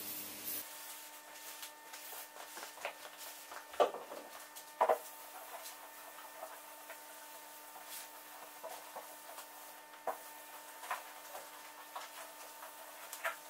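Faint rubbing of a cloth wiping degreaser over a sanded car door panel, with a few short sharp sounds scattered through. The loudest of these come about four seconds in and as a pair about five seconds in.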